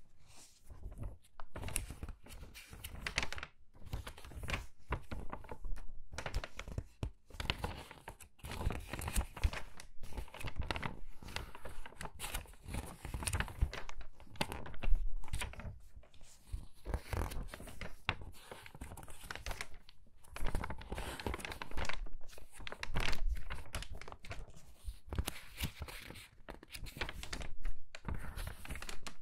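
Pages of a crinkly magazine turned quickly one after another, each turn a short burst of paper rustling and crinkling.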